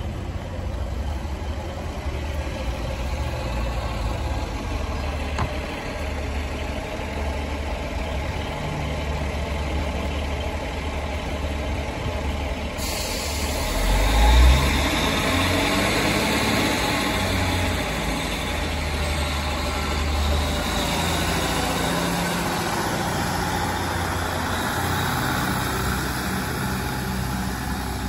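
Class 156 diesel multiple unit's Cummins underfloor diesel engines idling at the platform, then opening up about halfway through as the train pulls away, the engine note rising as it accelerates.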